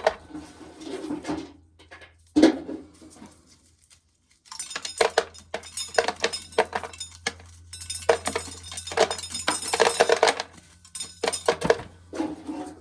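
Dried corn kernels being shelled off the cob and rattling and clicking into a pail in a dense, uneven run of small hard clicks, with a couple of heavier knocks before it.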